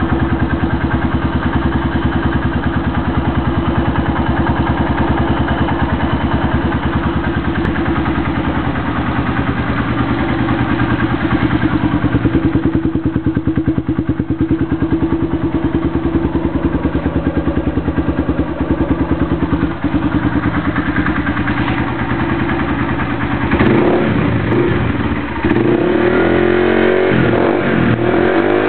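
Honda Titan single-cylinder four-stroke motorcycle engine breathing through a Roncar aluminium aftermarket exhaust, idling steadily, then revved up and down several times near the end.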